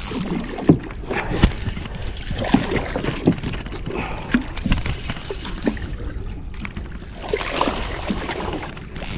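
Water sloshing and splashing around a small boat, with scattered knocks and clicks over a steady low rumble.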